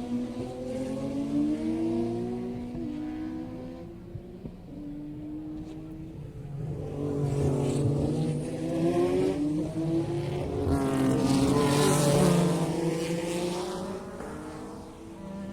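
Racing engines at a track, several at once, their pitch rising and falling as they rev and pass. The sound swells to its loudest past the middle, then eases off near the end.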